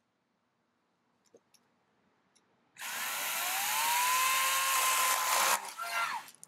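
Wild Badger 16-inch 40V cordless electric chainsaw starting suddenly a little under three seconds in, its motor whining up to speed and running steadily as it cuts through a branch. About two and a half seconds later it is switched off and the whine falls away as the chain coasts to a stop.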